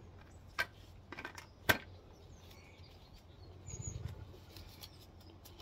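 Hand-handling noises: a few sharp plastic clicks and taps, the sharpest about a second and a half in, then a brief rustle and low rumble of crumpled plastic being handled around four seconds in, with a faint bird chirp.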